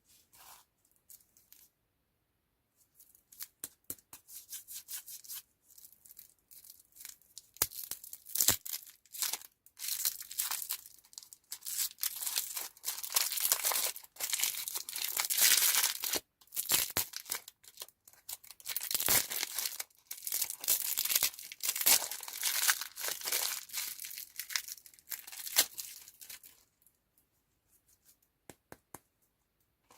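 Candy packaging being torn open and crinkled by hand close to the microphone: a few faint ticks at first, then dense crackling and rustling through the middle that thins out near the end.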